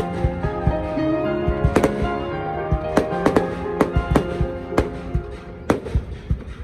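Fireworks bursting in a display: about a dozen sharp bangs at irregular intervals, with music playing underneath.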